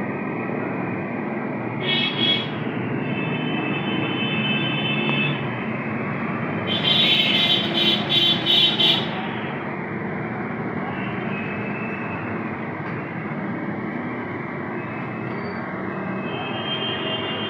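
Steady traffic noise with vehicle horns sounding over it: a short toot about two seconds in, a longer one just after, and a louder run of blasts from about seven to nine seconds.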